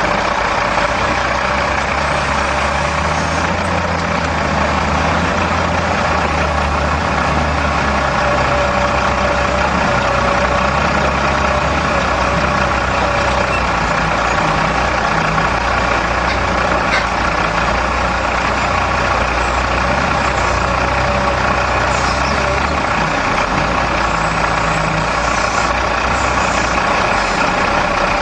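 A heavy machine's engine running steadily, its low note shifting slightly as the load changes.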